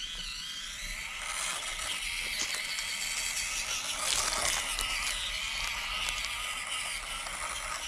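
Axial SCX24 Power Wagon micro RC crawler driving slowly: its small 050 electric motor and worm-gear drivetrain whir, and the tyres scrape over moss and rock. A steady high hiss sits underneath, swelling slightly in the middle.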